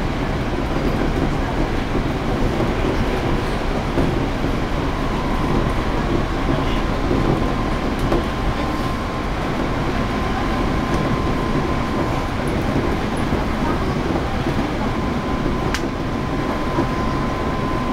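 Hankyu 8300-series electric train running between stations, heard inside the passenger car: a steady rumble of wheels and running gear, with a faint steady high tone joining about five seconds in.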